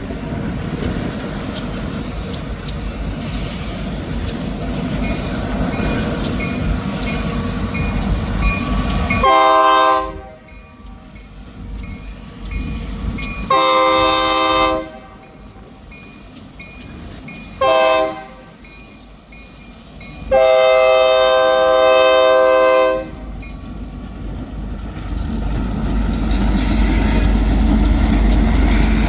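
Freight locomotive air horn sounding four blasts in the grade-crossing pattern, long, long, short, long, the last held about two and a half seconds, over wind buffeting the microphone. Near the end the low rumble of the approaching train grows louder.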